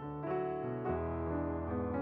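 Background piano music: a slow melody over held chords, the notes changing about every half second.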